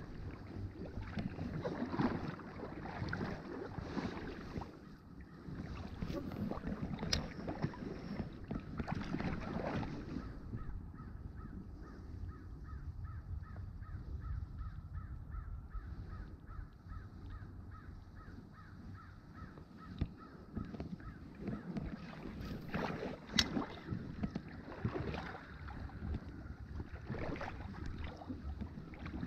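Creek water rushing and splashing. A bird calls a long, even series of short repeated notes for several seconds through the middle.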